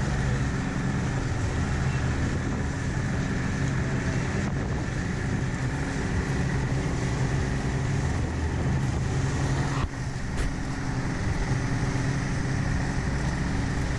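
Twin Yamaha 200 outboard motors running at a steady speed, with water rushing and churning in the boat's wake.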